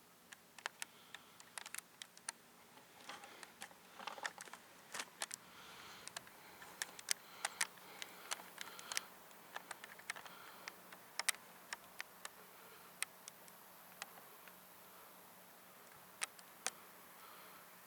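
Faint, irregular sharp clicks and ticks, several a second at times, over a quiet background.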